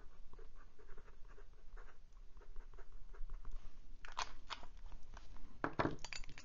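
Steel mini fude nib of a Wing Sung 601 fountain pen scratching across paper in quick short strokes, followed by a few louder clicks and knocks as the pen is handled.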